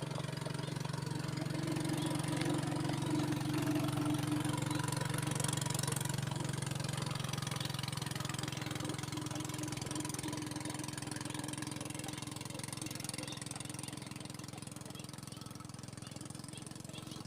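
An engine running steadily with a low drone, growing louder over the first few seconds and then slowly fading, as if passing by.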